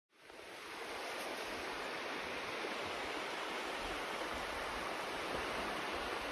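Surf washing on a sandy beach: a steady, even hiss of the sea that fades in within the first second, with a few low rumbles of wind on the microphone.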